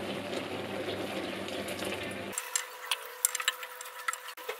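Coconut milk being poured into a hot aluminium pot of cooked chillies, onion and galangal, with steady sizzling and pouring. About halfway the sound changes abruptly to a wooden spatula stirring the pot, with scrapes and light knocks against the metal.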